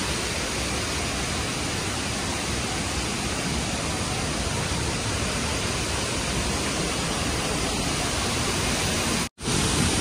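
Steady rushing roar of the Tirathgarh waterfall in full monsoon flow. It breaks off for an instant near the end.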